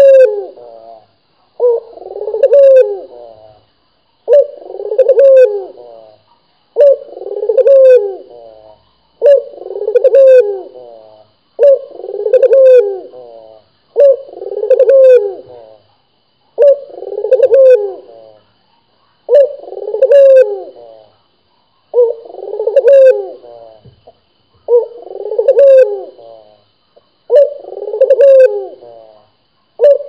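Puter dove (domestic ringneck dove) cooing over and over, the same coo phrase repeated in a steady rhythm about once every two and a half seconds.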